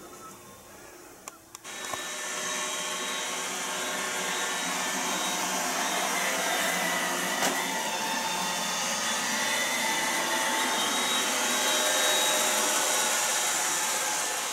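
Robot vacuum cleaner running: a steady whirring hiss with several faint steady tones in it, starting suddenly about two seconds in.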